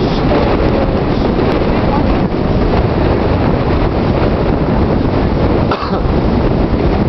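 Strong gusting wind buffeting the microphone: loud, steady low rumbling noise with a brief lull near the end.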